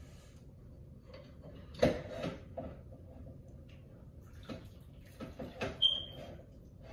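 Scattered light knocks and clinks as a cooking pot and its contents are handled at a kitchen sink, with a brief high-pitched note about six seconds in.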